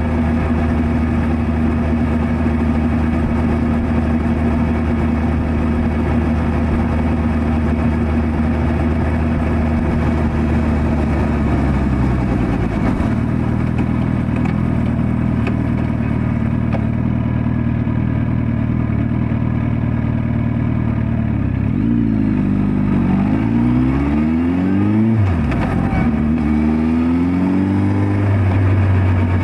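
Suzuki Hayabusa GSX1300R inline-four engine running steadily while cruising. About twelve seconds in the revs drop as the bike slows. Later the revs climb and fall several times with gear changes as it accelerates away.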